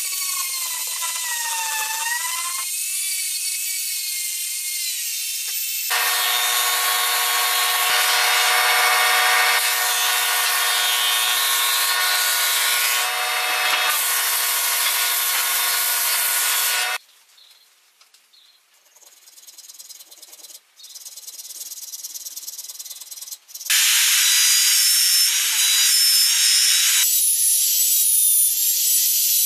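Power tools working wood. It opens with a handheld rotary tool's small sanding drum grinding a wooden edge, its pitch wavering under load. Later comes a steady high motor whine for about ten seconds, a quiet lull of several seconds, then a trim router running loud and cutting near the end.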